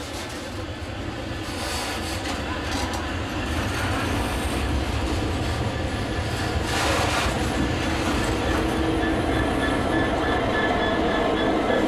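Slow-moving train rolling past at close range, with wheel noise from the new Class 777 unit and wagons, then a GBRf Class 66 diesel locomotive (two-stroke V12) running by, its engine rumble and a steady hum growing louder toward the end.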